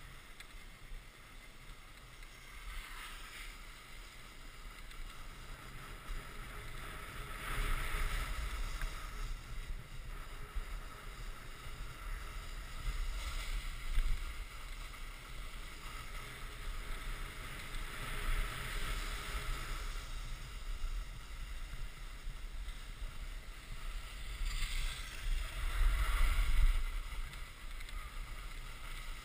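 Snowboard sliding and carving over groomed snow, a steady scraping hiss that swells louder in several turns, the biggest near the end, with wind rumbling on the microphone.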